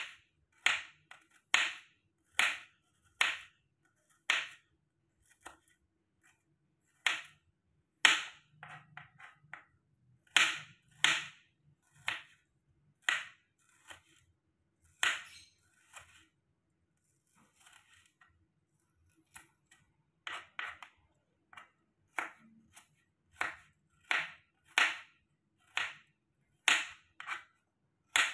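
Kitchen knife slicing shallots and garlic cloves on a plastic cutting board: sharp taps of the blade striking the board, one per slice, about one a second, with a couple of short pauses and quicker taps near the end.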